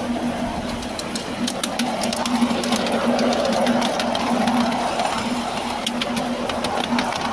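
Miniature railway train running along the track: a steady hum and rumble, with wheels clicking sharply and irregularly over rail joints and points.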